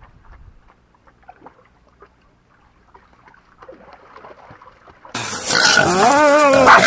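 Hunting dogs catching a wild boar in brush: a sudden loud commotion starts about five seconds in, with a long wavering high cry. Before it there are only faint small splashes and ticks as dogs wade in a muddy ditch.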